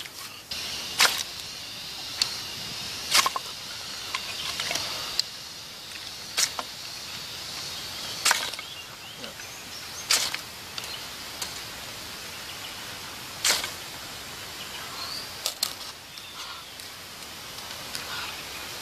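Knife and dry sticks being worked: a series of sharp wooden knocks and cracks spaced a second or more apart, over a steady outdoor background.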